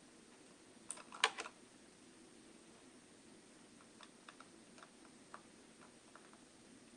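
Light clicking at a computer: a quick cluster of clicks about a second in, then fainter, scattered clicks later, over quiet room tone.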